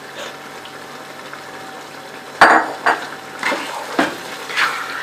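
Quiet sizzling in the pot, then, from about halfway, a run of about five sharp clanks as a metal spoon stirs chana dal into the fried mutton masala and knocks against the pot; the first clank is the loudest.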